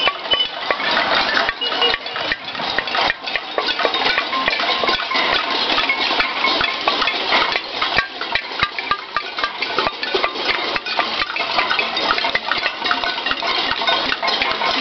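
Cacerolazo: many people banging pots and pans, a dense, unbroken metallic clatter of overlapping strikes.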